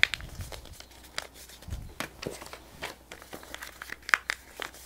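Slips of paper being folded by hand, with irregular crinkles and crisp creasing crackles.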